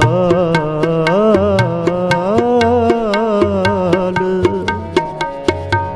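Sikh devotional shabad: a singer draws out a long ornamented note, its pitch bending up and down, over held instrumental tones and a steady run of tabla strokes.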